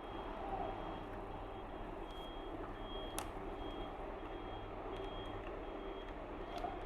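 Electronic alarm beeping: short high beeps repeating about every 0.7 s over a steady hum and background noise, with one sharp click about three seconds in.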